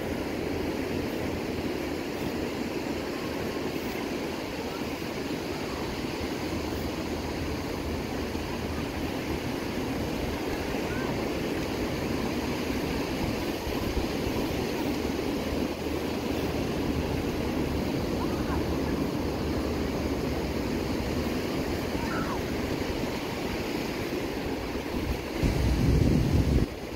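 Ocean surf washing steadily onto a sandy beach, with a brief loud low rumble near the end.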